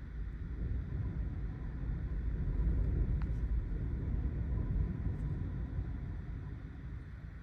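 A Santa Ana wind gust buffeting the microphone: a low rumble that swells to a peak about halfway through and then eases off.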